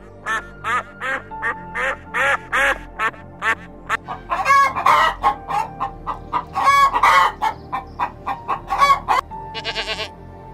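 Chickens clucking in a quick run of short calls, then louder, longer calls in the middle, over background music.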